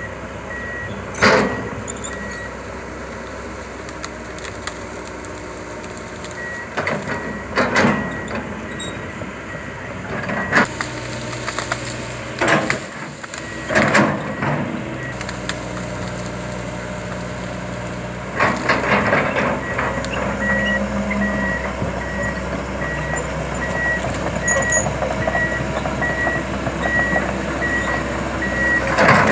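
Komatsu PC200 LC tracked excavator's diesel engine running steadily, with its travel alarm giving a regular pulsed beep in stretches while the tracks move. Several loud knocks and clunks break in, the loudest about a second in and around eight seconds in.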